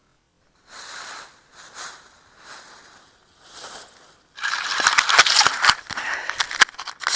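Dry grass stems rustling and crackling against a downed RC glider and its onboard camera: a few soft swishes, then about four seconds in a loud, dense crunching and crackling as the plane is picked up out of the grass.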